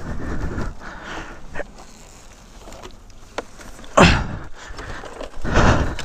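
Scuffling and rustling of a rider moving about on a dirt slope beside a fallen motorcycle, with a few sharp knocks and a louder thud about four seconds in.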